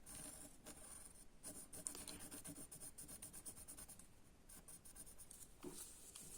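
Faint, scratchy strokes of drawing on paper, as the eyebrows of a drawn face are sketched in.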